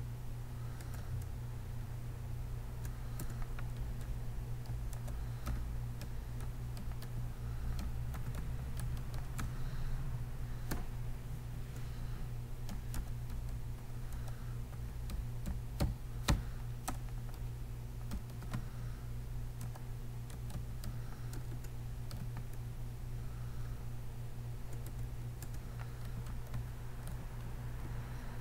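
Computer keyboard being typed on: irregular, unhurried key clicks, one louder clack about two-thirds of the way through, over a steady low electrical hum.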